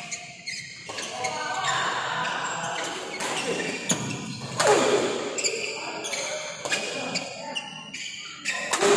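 Badminton doubles rally: sharp racket strikes on the shuttlecock and players' shoes on the court, with voices in the background.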